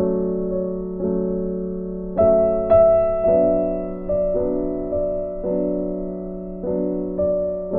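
Background music: slow, gentle piano, a chord or note struck about once a second and left to fade over a held low note.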